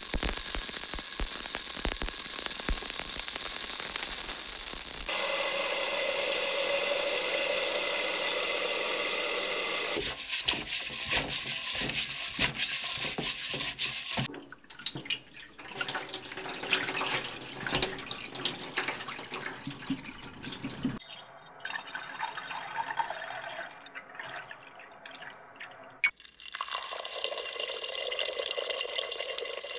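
Water splashing hard into a cup, then wet raw rice being rubbed and swished by hand in a pot, a busy run of small gritty clicks and rustles. Near the end, water runs again in a steady stream onto rice in a rice cooker's inner pot.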